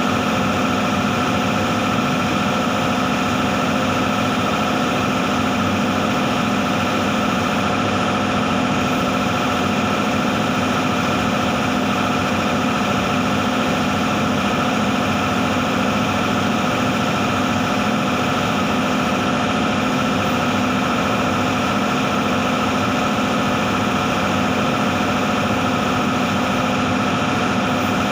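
Steady, unbroken drone of spray-booth machinery, a fan-like hum with several fixed tones over a rushing hiss, with the compressed air of a spray gun in use.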